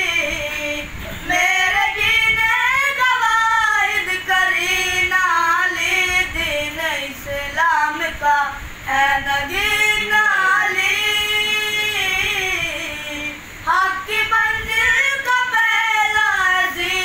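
Boys singing a devotional song in praise of Ali in high, unbroken voices with no instruments, in long held, wavering melodic phrases with short pauses between them.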